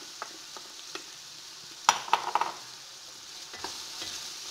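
Minced garlic and chopped onions sizzling in olive oil in a stainless steel pot, stirred with a wooden spoon. About two seconds in there is a sharp knock and a brief clatter against the pot.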